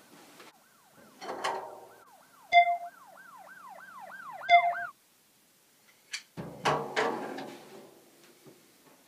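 Drum kit struck: a drum hit about a second in, then a deep kick thump and a drum-and-cymbal crash past the middle. Between them a siren-like warbling tone swoops up and down over and over, broken by two loud, sharp beeps, and cuts off suddenly.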